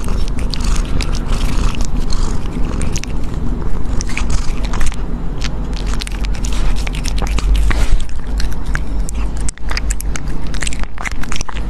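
An animal chewing and crunching food close to the microphone, a dense run of crisp irregular bites and crunches.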